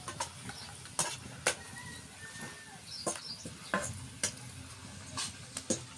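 Hot oil sizzling in a kadhai of frying patavadi, with a metal spoon knocking against the pan about seven times.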